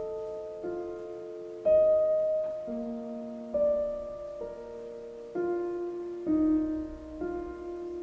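Background music: a gentle piano tune, with notes and chords struck about once a second and left to ring and fade.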